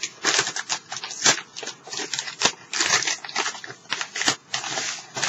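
Plastic DVD cases and packaging being handled: irregular clicks and clacks mixed with short crinkling rustles.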